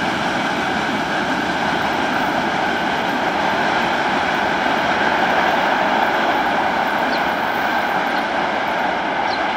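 Freight train's boxcars and open wagons rolling past: steady wheel-on-rail rolling noise.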